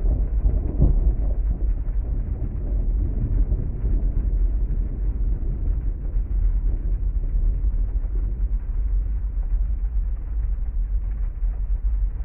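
Heavy rain with a low, continuous thunder rumble that swells briefly about a second in.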